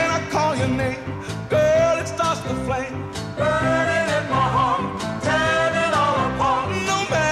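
Background music: a song with a sung vocal over a band playing a steady beat.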